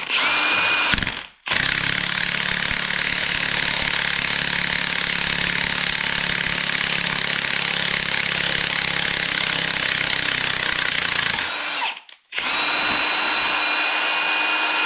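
A power tool run in three bursts to drive a clamshell bearing puller, pulling an old carrier bearing off a Dodge Ram 9 1/4 rear axle's differential carrier: a short burst of about a second, a long run of about ten seconds, then after a brief pause another run of a couple of seconds, the motor pitch rising as each burst starts.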